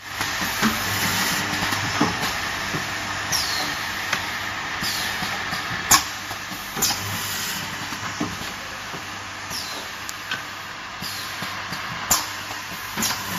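Automatic dowel drilling and inserting machine running: a steady hiss of machinery, with several brief falling whines and sharp clacks. The loudest clack comes about six seconds in, and another comes near the end.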